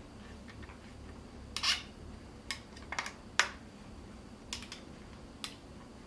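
Scattered sharp metal clicks and clinks, about seven in irregular rhythm, from a 4 mm Allen key working two screws as they are tightened into an umbrella holder mount.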